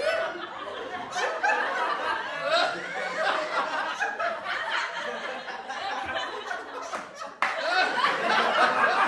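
Several people laughing and chuckling together, overlapping voices. About seven and a half seconds in, the laughter jumps abruptly to a louder burst.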